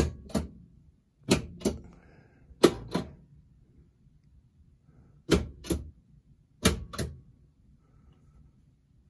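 Solenoid coils of a Gottlieb Robo-War pinball machine fired one after another in the diagnostic solenoid test: five pairs of sharp clacks, the two clacks of each pair about a third of a second apart, with a longer pause after the third pair. The coils are firing normally.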